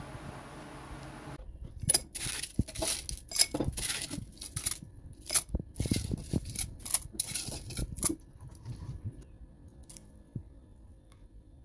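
Crushed ice clinking and crackling against a drinking glass, a dense run of sharp clicks that stops about eight seconds in.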